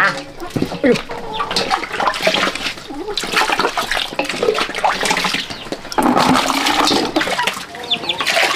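Water pouring and splashing into a plastic bucket from a scoop, louder from about six seconds in, while chickens cluck around it.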